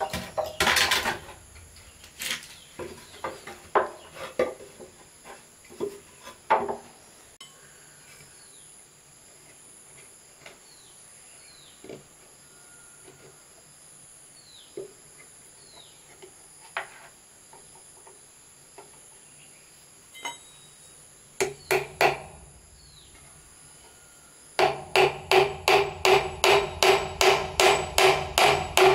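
Hammer blows on wood: a few scattered knocks in the first seven seconds, then near the end a steady run of ringing strikes, about three a second.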